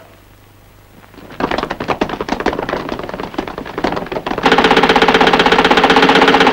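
Machine-gun fire in an old film soundtrack. A ragged clatter starts about a second and a half in, then turns into a fast, even, continuous rattle about four and a half seconds in.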